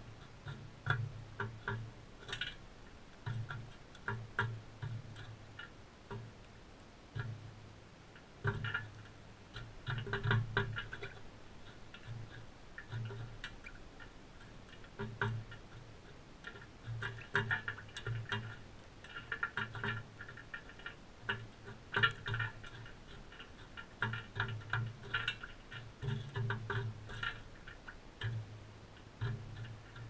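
Crimson rosellas husking seed at a feeder close to the microphone: irregular clicking and cracking of beaks on seed husks, with soft taps as the birds shift on the tray, busiest about a third of the way in and again past the middle.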